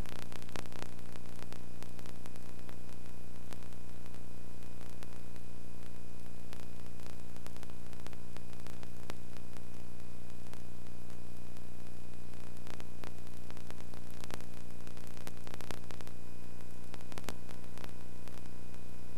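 Steady electrical hum with many overtones under a constant hiss, with scattered crackling clicks: background noise on a soundtrack that carries no recorded game sound.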